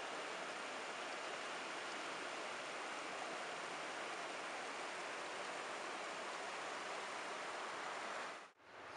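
Steady rush of river rapids, an even hiss of flowing water that cuts off near the end.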